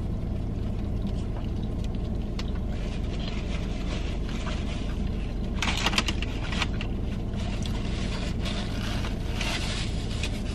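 A steady low hum inside a car's cabin, with chewing and brief rustles of a foil wrapper and a paper napkin over it; the loudest rustle comes about six seconds in, with more near the end.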